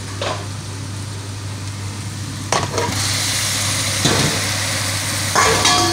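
Chopped onions sizzling in hot oil in a frying pan. About three seconds in, raw chicken pieces go into the pan and the sizzling grows louder, with a few knocks of the pieces and spoon against the pan.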